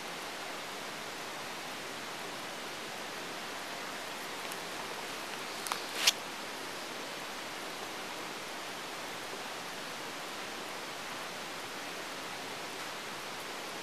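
Steady hiss of quiet room tone on a body-worn camera's microphone, broken about six seconds in by two sharp clicks less than half a second apart, the second louder.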